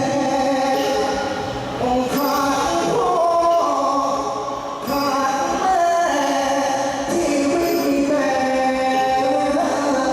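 Live singing with musical accompaniment, the voice holding long notes and stepping from pitch to pitch.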